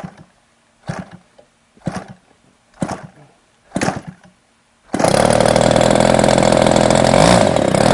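50cc twin-cylinder gas engine on an RC plane being hand-started: five short pops about a second apart as the propeller is flipped, then it catches about five seconds in and runs on loud and steady.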